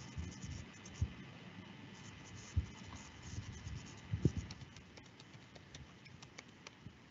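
Faint computer keyboard typing: a run of light clicks in the second half, after a few dull thumps, over a steady faint background hum.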